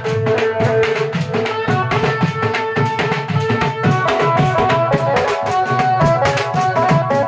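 Indian band-party music: a keyboard melody moving in short stepped notes over fast, dense drumming.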